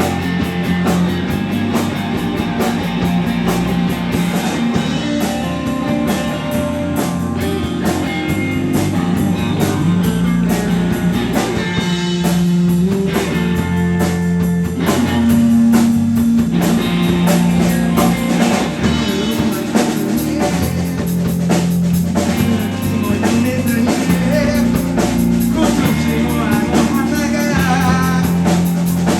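Rock band playing live: electric guitar, bass and drum kit, with a singer.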